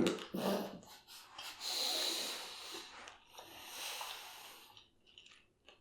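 A person breathing heavily close to the microphone: two long, hissy breaths, the first about a second and a half in, the second after a short gap.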